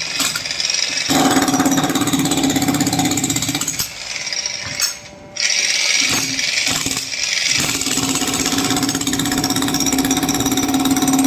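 Electric hammer drill chiselling into a concrete floor slab, hammering steadily in spells; it eases off about four seconds in, starts again about two seconds later, and pauses briefly once more before running on.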